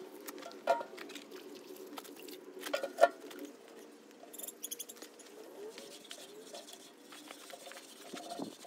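Wet rag being rubbed over a pottery wheel's plastic splash pan and metal body, with scratchy, squeaky rubbing. Two sharp knocks, about a second in and about three seconds in, are the loudest sounds.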